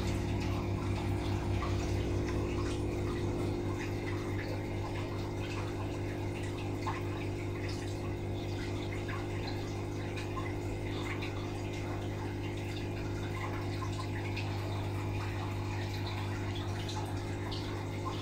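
Aquarium air pump humming steadily while its air stream bubbles up through a sponge filter, with many small bubble pops and splashes over the hum.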